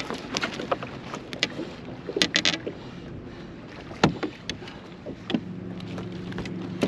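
Clicks, knocks and rattles of a landing net, rod and tackle handled on a boat deck while a landed striped bass is worked out of the net and unhooked, with one sharp knock about four seconds in. A steady low hum starts about five seconds in.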